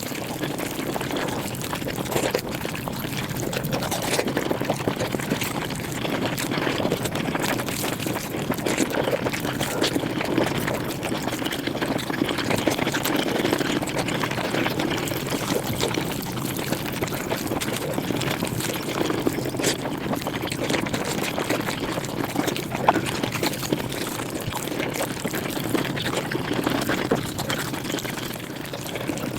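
Mukbang eating sounds sped up five times: chewing and mouth noises merged into a continuous dense crackle of tiny clicks and smacks.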